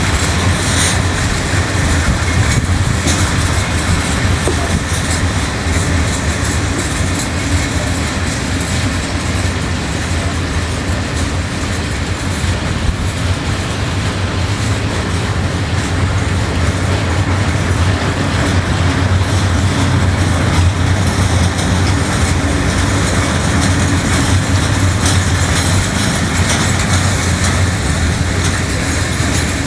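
Container flat wagons of a long freight train rolling past, a steady loud rumble of wheels on rail with scattered clicks as the wheels cross rail joints.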